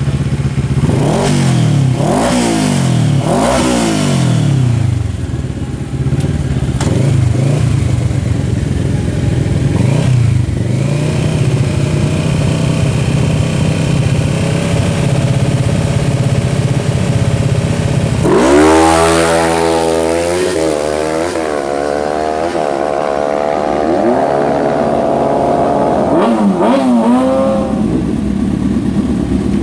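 Superbike engines revving in repeated throttle blips, then running steadily. About eighteen seconds in, one bike launches hard and accelerates, its pitch climbing and dropping back in steps as it shifts up through the gears.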